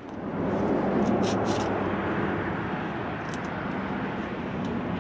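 Low, steady rumble of a passing vehicle that swells about a second in and slowly fades, with a few faint high ticks over it.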